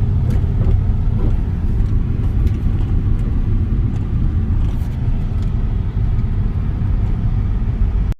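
Car driving, heard from inside the cabin: a steady low rumble of engine and tyres on the road, with a few faint ticks.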